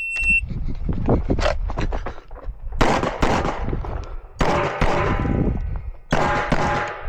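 An electronic shot-timer beep starts the stage, followed about a second later by a string of pistol shots fired in quick groups. Steel targets ring after the hits.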